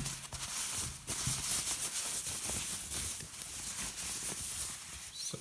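Thin white plastic wrapping crinkling and rustling as hands dig into it and pull an item out, a dense run of crackles that eases off near the end.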